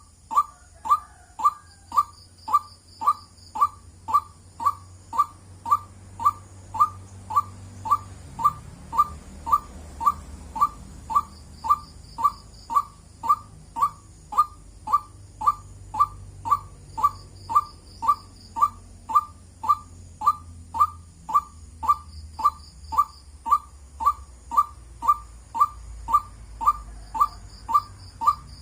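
White-breasted waterhen calling, one short 'wak' note over and over at an even pace of about two a second, without a break. A faint high trill sounds every few seconds behind it.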